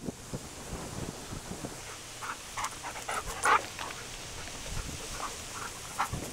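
Dogs panting in short breathy puffs, the loudest about three and a half seconds in.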